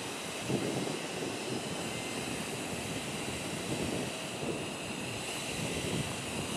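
Two-car diesel railcar train, a KiHa 125 leading and a KiHa 47 behind, running slowly in the distance: a steady engine rumble with a steady hiss over it.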